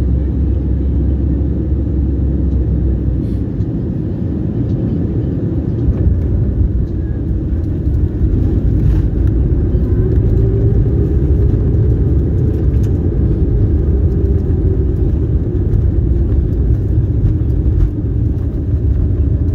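Cabin sound of a jet airliner landing: a steady low rumble of engines and airflow that grows louder from about six to eight seconds in as the wheels meet the runway and the aircraft rolls out, with a faint engine tone rising and then slowly falling.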